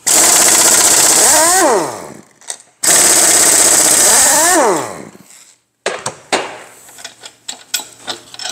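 Impact wrench hammering on the main bearing cap bolts of an S44 engine block: two bursts, each ending as the tool winds down with a falling whine. After them come clinks and clanks of loosened metal parts being handled.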